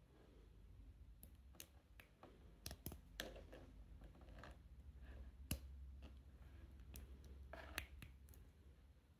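Faint scattered clicks and light scrapes of small 3D-printed plastic spacers being handled and pushed snugly onto a round plastic part, with sharper clicks about five and a half seconds in and again near eight seconds.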